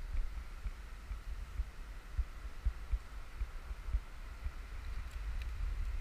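Low, irregular thumping rumble on the camera's microphone over a faint steady hiss.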